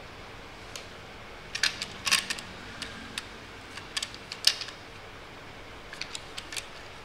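Light clicks and taps of small hard parts being handled, in three short clusters about two seconds apart.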